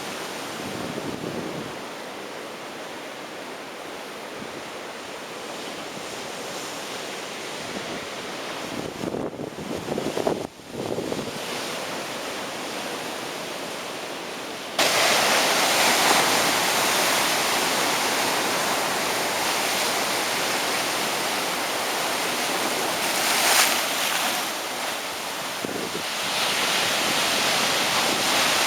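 Heavy ocean surf breaking on a beach: a steady rushing wash of waves. About halfway through it jumps suddenly louder and brighter, with a stronger surge a little later.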